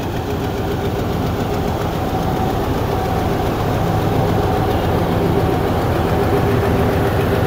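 Diesel locomotive engine running steadily as the Pakistan Express is taken through floodwater on the track, slowly getting a little louder.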